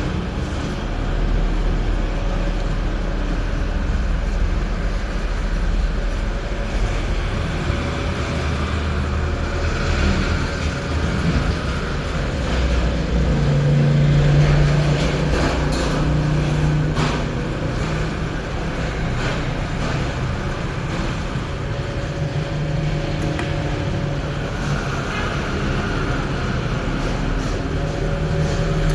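Cylinder honing machine running: a steady motor hum whose low tone grows stronger around the middle and again near the end, with a few light clicks.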